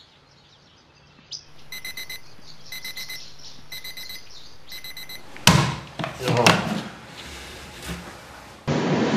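Casio digital alarm clock beeping in four short bursts of rapid beeps. The beeping stops with a loud thump, followed by a few knocks and rustling.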